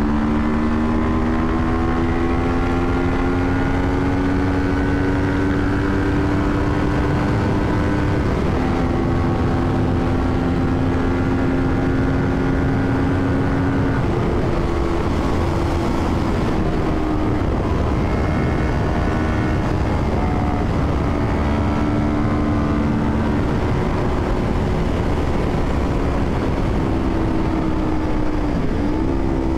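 Parallel-twin motorcycle engine under way, its pitch climbing slowly and dropping about five times at gear changes or lift-offs before climbing again, over a steady rush of wind noise.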